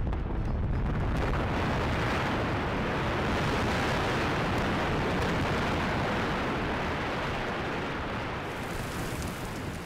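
Blast on a mountaintop-removal mine: a long continuous rumble of shattered rock and debris thrown out by the explosive charge, with heavy deep rumbling, easing slightly near the end.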